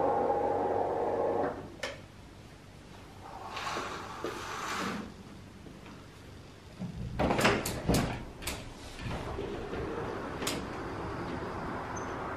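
A steady hum cuts off about a second and a half in. Then comes a soft rustle as a curtain is drawn along its rail. About seven seconds in, a balcony door's handle and frame give a quick run of sharp clicks and rattles as the door is opened, and a steady outdoor background follows.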